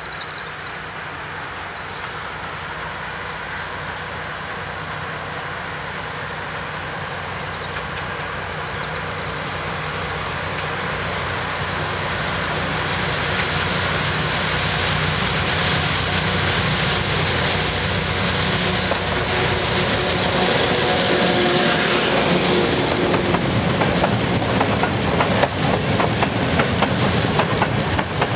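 SU46 diesel locomotive approaching with a freight train of open wagons, its engine sound growing steadily louder until it passes about 22 seconds in. The wagons then roll past close by with rapid clicking of wheels over the rails.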